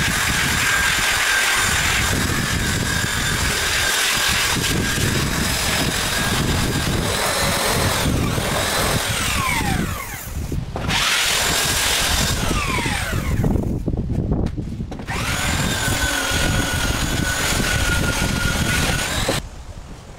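Corded handheld electric power tool running on wooden deck boards with a steady whine. It winds down and cuts out twice, starts up again, and stops a little before the end.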